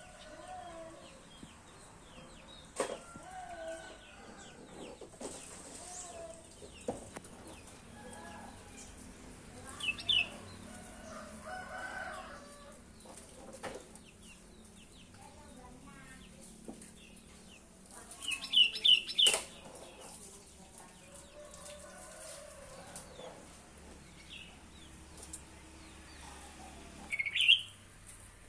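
Sooty-headed bulbul (kutilang) calling in short, bright whistled phrases: one about a third of the way in, a quick run of several near two-thirds, and another near the end, with quieter chirps between.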